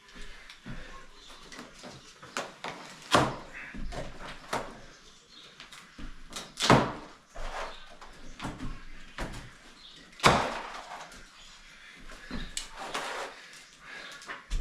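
Irregular knocks, bangs and clatters of parts and objects being handled and set down, with three louder bangs about 3, 7 and 10 seconds in and smaller clicks and taps between.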